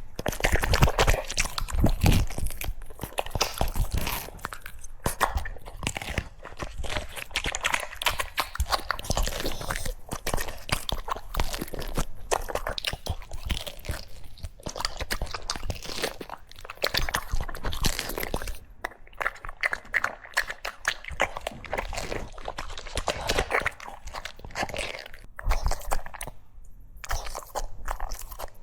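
A French bulldog crunching and chewing food close to the microphone: a rapid, irregular run of crunches with a few short pauses.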